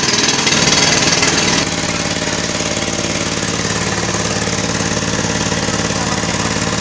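Lister 20 kVA diesel generator running just after starting, loud, easing slightly to a steady, even beat about a second and a half in.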